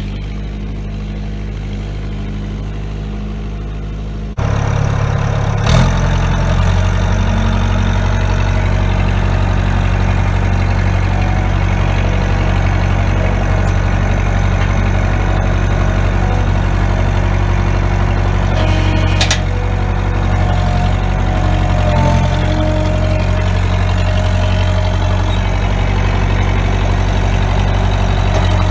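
Bobcat 943 skid steer's four-cylinder Perkins diesel engine running steadily. It gets suddenly louder about four seconds in, with a sharp knock a second or so later.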